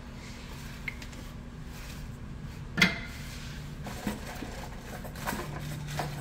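Light metallic clinks and clacks from brake pads and their hardware being handled, with one sharper clack about three seconds in, over a faint steady low hum.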